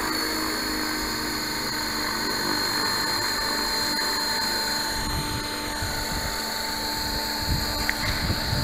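T-Rex 600-size radio-controlled helicopter running on the ground with its main rotor turning: a steady high whine over the rotor's rushing noise, joined by irregular low rumbling from about five seconds in.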